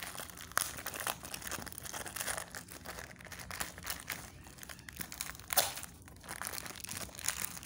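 Plastic wrap and tape being peeled and torn off the end of a cardboard mailing tube: irregular crinkling and crackling, with one sharper, louder crackle about five and a half seconds in.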